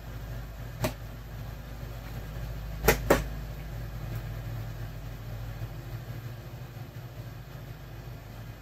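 A Phillips screwdriver unscrewing the battery cover of a plastic Star Wars Black Series clone trooper helmet, with hard plastic clicks and knocks: one about a second in and two close together about three seconds in. A steady low hum runs underneath.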